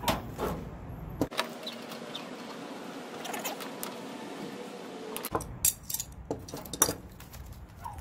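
Metal tools clinking: a wrench working on a brass gas-hose fitting and being handled and set down, with a run of sharp clicks and taps, most of them in the second half.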